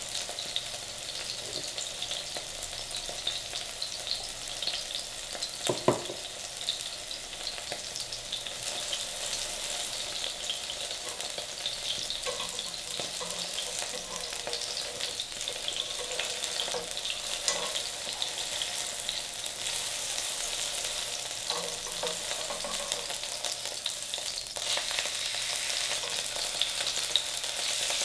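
Poplar fieldcap mushrooms frying in hot cooking oil in a nonstick pan, topped with grated cheese melting: a steady sizzle with fine crackling spits. A single brief knock about six seconds in.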